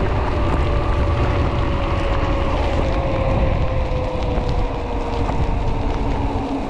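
Wind rushing over the microphone of a mountain bike speeding downhill on wet asphalt, with tyre noise on the wet road. A faint whine under it falls slowly in pitch as the bike slows.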